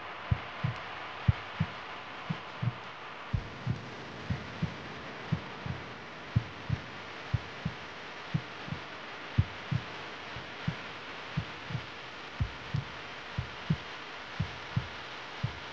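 A low double thump like a heartbeat, repeating about once a second over a steady hiss: a heartbeat pulse in the soundtrack laid over the showcase.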